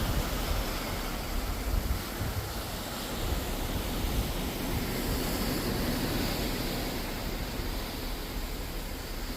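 Sea washing past a moving cruise ship, a steady rushing noise, with wind buffeting the microphone as a gusty low rumble.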